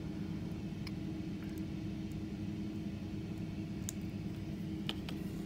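Steady low hum of room noise, with about five faint, short clicks as the metal links of an expanding watch band are handled while a link pin is worked back into place.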